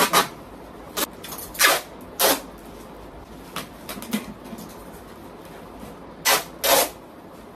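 Brown packing tape being pulled off the roll in short, sharp rips, about nine of them, some in quick pairs, as a wrapped bundle is taped shut.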